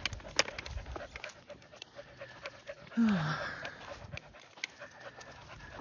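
Dog panting, with a short falling vocal sound about three seconds in.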